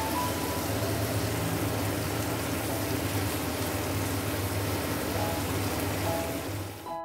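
Tofu and long beans stir-frying in a wok, a steady loud sizzle that cuts off suddenly at the very end.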